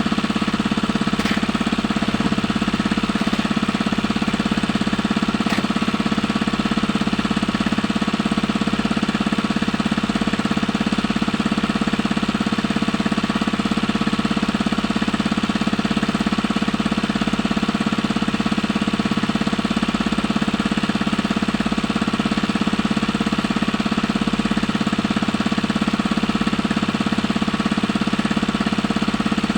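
Small engine running steadily at a constant speed, a loud, even drone that does not change.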